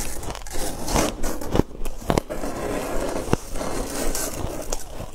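Frosty, snow-crusted ice crunching and scraping against a clear plastic box, with a few sharp crackling snaps about one and a half, two, and three and a half seconds in.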